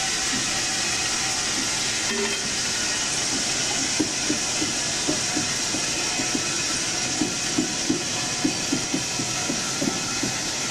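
Freight car wheels rolling slowly along the rail under a steady hiss. From about four seconds in there is a run of short knocks and creaks, two or three a second.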